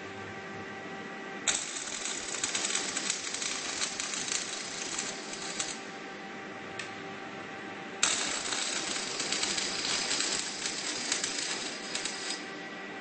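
Automatic welding arc crackling in two runs, each about four seconds long and starting and stopping abruptly: the first begins about a second and a half in, the second about eight seconds in. A steady machine hum runs underneath.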